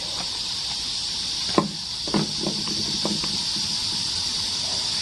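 Steady high-pitched hiss, with a sharp click about one and a half seconds in and a few short, faint sounds just after.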